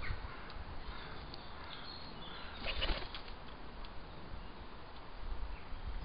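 A pigeon's wings flapping as it flies in and lands on a wooden bird table: a short burst of wingbeats about halfway through, and more flapping near the end as it settles.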